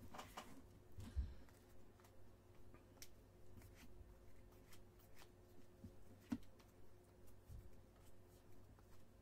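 Trading cards being handled and sorted by hand: soft slides and rustles with scattered light clicks, and a sharper tap about a second in and another around six seconds.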